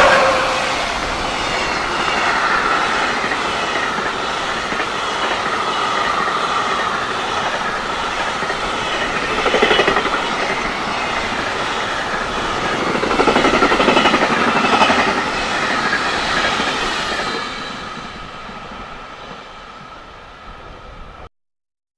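A long freight train's container wagons rolling past at speed: a steady wheel-on-rail rumble and clatter with a thin steady whine above it, swelling about ten and again about fourteen seconds in. The sound fades as the last wagons go by, then cuts off abruptly near the end.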